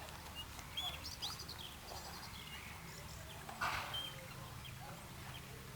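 Harbour-side outdoor ambience: scattered short, high bird chirps and calls over a low steady hum, with a few light knocks, the loudest a little past the middle.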